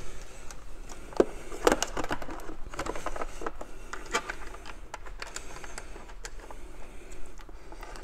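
A plastic wall plate and screwdriver being handled at a wall box, giving scattered light clicks and knocks, with a faint low hum underneath.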